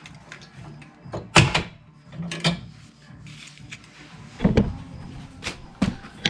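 Clunks and knocks of metal parts and tools being handled while a masonry saw is assembled. There are several sharp knocks, the loudest about a second and a half in and again about four and a half seconds in.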